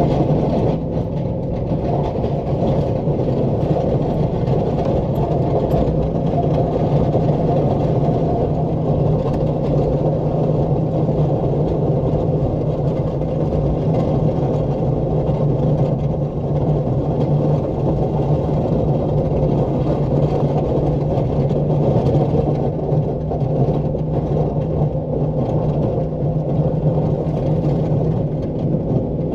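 Pickup truck engine running steadily under load as the truck pushes heavy wet snow with its plow.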